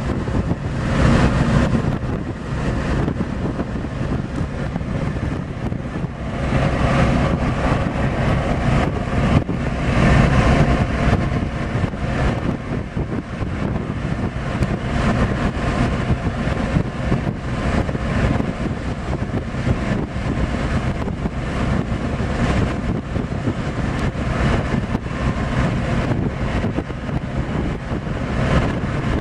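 Wind blowing across the microphone on the deck of a ship under way, over a steady low drone from the ship and its wake, gusting louder a few times.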